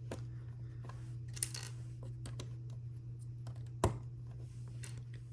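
Small plastic LEGO pieces being handled and pressed onto studs: a few sharp clicks, the loudest nearly 4 seconds in, over a steady low hum.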